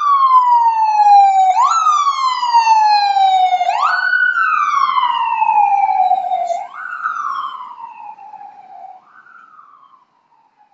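FDNY ambulance siren wailing, each cycle a quick rise in pitch followed by a slower fall, repeating about every two to three seconds. It fades out over the last few seconds as the ambulance drives away.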